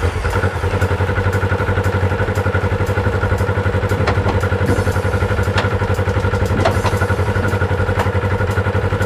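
Side-by-side engine idling steadily, with the exposed CVT drive belt and the STM tuner secondary clutch turning. A few short clicks come as it is shifted in and out of gear, with a slight bump going into gear: a sign the belt is set a little too tight, calling for slightly more deflection.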